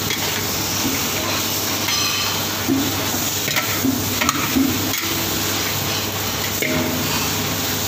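Rice noodles and egg sizzling in a hot wok as they are stir-fried for pad thai, tossed and scraped with a metal ladle and spatula, with scattered short clinks of metal against the wok. A steady low hum runs underneath.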